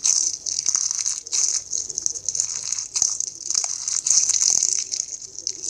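Fishbowl slime, clear slime packed with plastic fishbowl beads, being squeezed and worked by hand. It gives repeated bursts of crunchy crackling and clicking.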